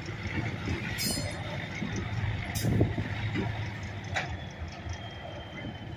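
Locomotive engine running with a steady low rumble as it shoves freight cars, with a few sharp metallic clinks.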